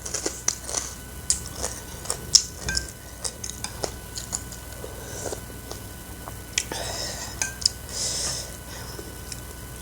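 Cutlery clicking and clinking against a bowl in many sharp, irregular taps while eating instant noodle soup, with a few short hissy mouth sounds of eating between about seven and eight and a half seconds in.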